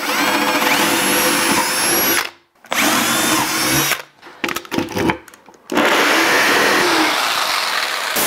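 A cordless drill spins up and bores twice into a plywood panel, about two seconds and then just over a second. After a few short knocks, a corded jigsaw starts about six seconds in and cuts steadily through the plywood to open hinge recesses.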